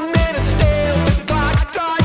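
Upbeat pop dance music with a steady, heavy bass beat and a melodic line above it.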